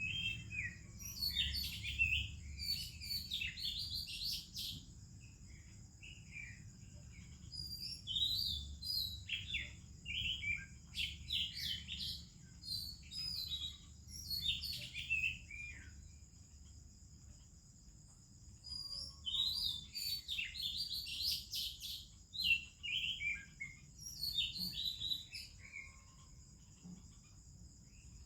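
Oriental magpie-robin singing: varied whistled and warbled phrases in three bouts with short pauses between them, over a steady high-pitched hiss.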